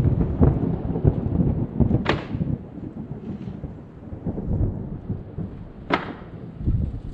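Uneven low rumble of wind buffeting the microphone, with two sharp wooden knocks, about two seconds in and near the end, as wooden pallets are handled and set down on a stack.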